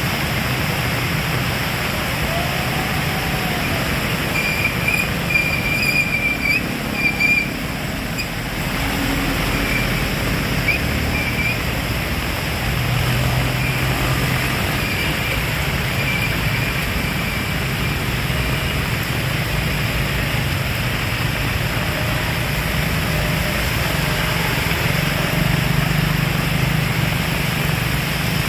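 Heavy rain falling steadily: an even, continuous hiss with a low rumble underneath. A few faint short high tones sound about five to eight seconds in.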